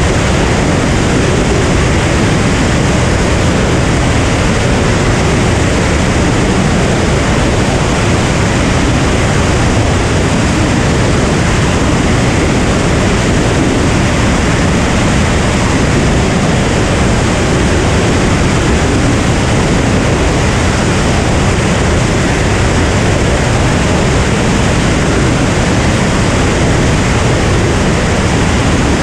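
Cirrus SR22 single-engine propeller plane in cruise flight: engine, propeller and airflow noise blended into a steady, even rushing drone that does not change.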